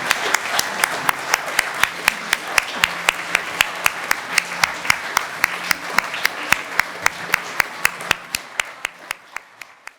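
Audience applauding, with one close clapper keeping a steady beat of about three claps a second; the applause dies away near the end.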